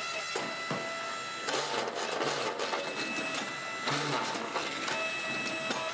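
QMC12-15 mobile egg-laying concrete block machine running: a steady mechanical whirr with several whining tones that shift a few times.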